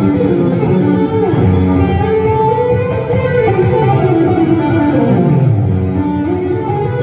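Electric guitar solo on a Fender Stratocaster through an amplifier: a melodic lead line of rising and falling runs, with notes sliding and held.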